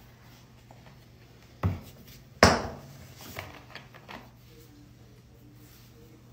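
Hands working dry powder in a bowl: two sharp thuds a little under a second apart, the second the louder, then a few lighter taps and crunches, over a faint steady hum.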